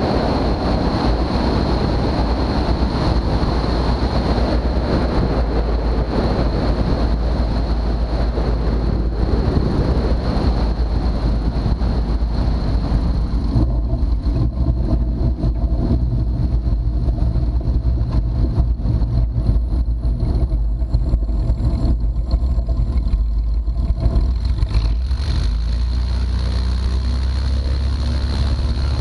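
A 1957 Cessna 172's six-cylinder Continental O-300 engine and propeller running steadily, a loud continuous drone. A broad rushing noise over it eases about halfway through, leaving a steadier hum.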